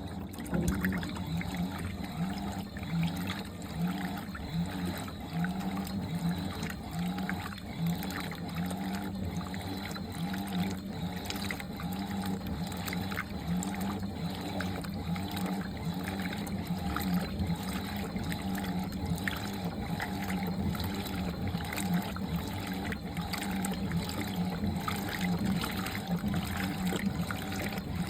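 Fisher & Paykel MW511 Smart Drive washing machine running with water swishing in the tub, its motor tone pulsing in a steady rhythm with the strokes.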